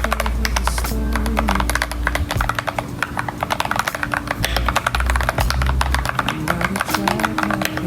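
Fast, continuous typing on an FL680 mechanical keyboard with Gateron Yellow linear switches: many rapid keystrokes in a dense run. Background music with a heavy bass line plays underneath.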